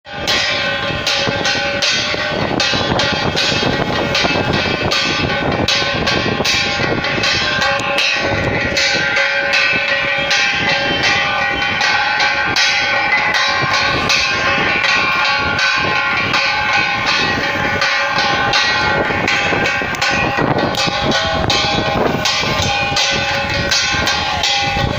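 Aarti bells and cymbals rung continuously: rapid clanging strikes, several a second, over a steady wash of ringing tones.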